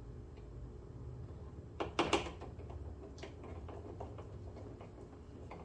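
A quick cluster of sharp plastic knocks and clicks about two seconds in, then lighter scattered ticks: a BMW X6 rear door trim panel and its clips being handled and pressed into place.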